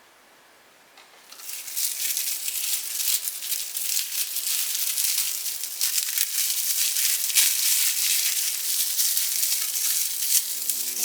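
Hot fat sizzling and crackling on microwaved bacon and onion. It starts suddenly about a second in and keeps up as a dense, steady crackle.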